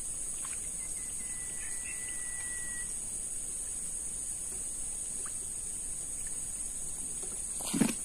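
Swamp-forest ambience: a steady high-pitched insect drone, with a bird's single long held whistle about a second in and a few faint bird chirps. A sharp knock sounds near the end.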